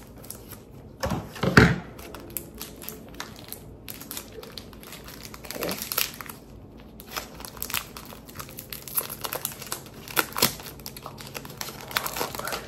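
Foil Pokémon booster-pack wrapper crinkling and crackling as it is cut open with scissors and handled in gloved hands, with a louder crackle about one and a half seconds in.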